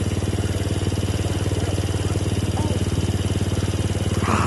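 Small petrol engine of a lure-coursing machine running steadily, with a fast, even firing beat and no change in speed.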